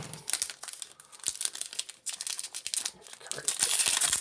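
Foil booster pack wrapper crinkling and being torn open: a stream of sharp crackles that grows denser and louder near the end.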